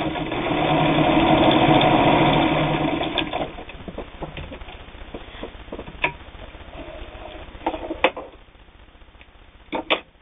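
Singer 66 sewing machine running steadily at speed, stitching through a thick stack of heavy denim, then slowing and stopping about three seconds in. Sharp clicks and knocks follow, the loudest near the end, as the machine is handled and the fabric is pulled out.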